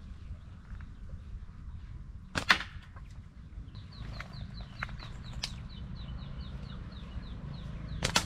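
A few sharp knocks, the loudest about two and a half seconds in, over a low steady rumble. From about four seconds in, a bird calls a run of short falling notes, about three a second.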